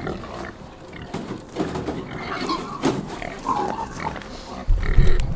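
Pastured hogs grunting in short, irregular bursts as feed arrives. Near the end, a loud low rumble cuts in.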